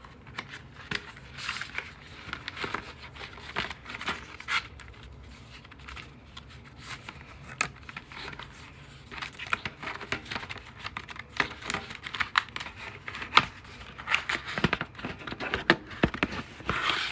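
A RAM kit's retail box and plastic packaging being opened by hand: irregular crinkling, tearing and scraping with scattered sharp clicks, busiest in the second half.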